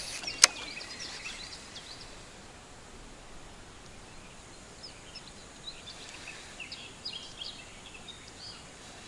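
Faint chirping of small birds, a scatter of short high calls in the second half, over a steady low hiss. A single sharp click sounds about half a second in.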